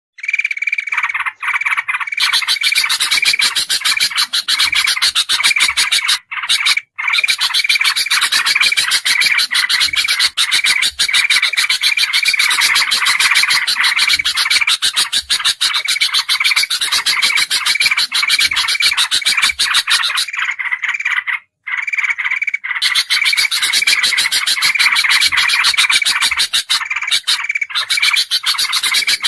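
Looped bird-lure recording of noisy bulbul calls: a dense, rapid chattering with a short high call repeating over and over. It breaks off briefly twice.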